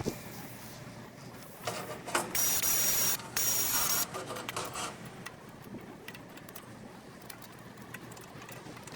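Two bursts of loud hissing, each carrying a thin steady high whine: one of just under a second about two seconds in, then a shorter one right after. Light scattered clicks and clatter follow.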